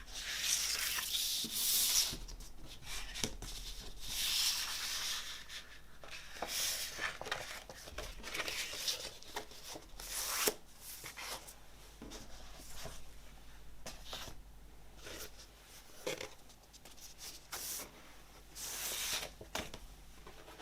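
Hands handling a vinyl LP's cardboard jacket and paper sleeves: irregular rustling, rubbing and sliding, with scattered light taps and clicks.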